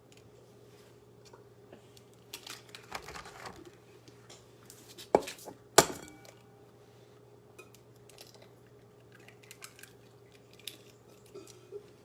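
Light clinks and taps of a bowl and utensils while eggs are cracked and the yolks separated, with two sharp knocks about half a second apart near the middle.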